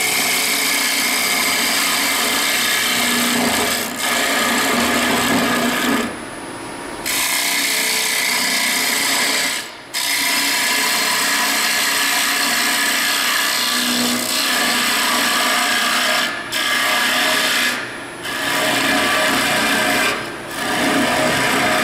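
Carbide lathe tool hollowing out a wooden bowl spinning on a lathe: a steady scraping hiss of the cut, broken by several short pauses where the tool comes off the wood. The cut runs smoothly without chatter, the tool held steady in the hollowing system.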